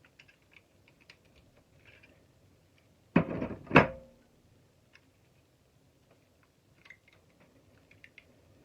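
Light clicks and taps of metal motor parts being handled on a workbench, then about three seconds in a short scraping clatter that ends in one sharp metal knock with a brief ring.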